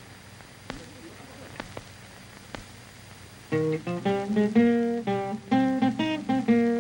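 Old film soundtrack: faint hiss with a few scattered clicks, then about halfway through a plucked string instrument starts a quick tune, one bright note after another.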